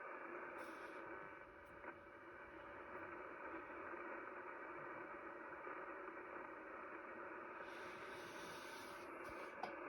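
Shortwave receiver hiss and static from a Kenwood TS-850SAT tuned to 4635 kHz, a steady band-limited noise with faint steady tones in it and no clear buzzer signal. Two brief hissy rustles sound outside the radio's band, about half a second in and near eight seconds.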